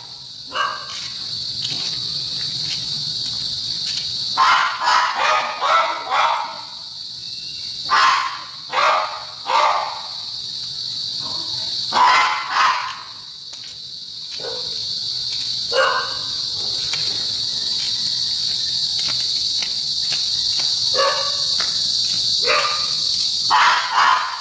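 Steady chirring of crickets or other insects, with short irregular louder noises coming and going every second or two.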